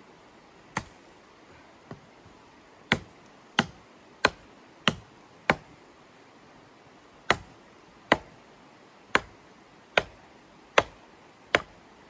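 A series of about a dozen sharp chopping strikes, each a short crack that dies away quickly, mostly about a second apart, with gaps about two and six seconds in.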